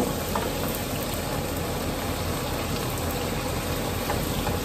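Shrimp frying in a saucepan on a gas burner, a steady sizzling hiss from the hot oil.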